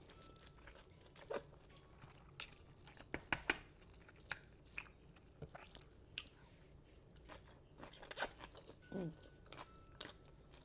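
A person chewing and biting food close to the microphone: irregular wet mouth clicks and crunches. A short falling vocal hum comes about nine seconds in.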